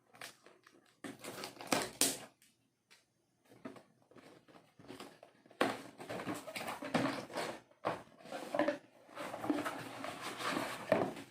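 Retail packaging being opened and handled: irregular rustling, crinkling and scraping in short bursts, busier and louder over the second half.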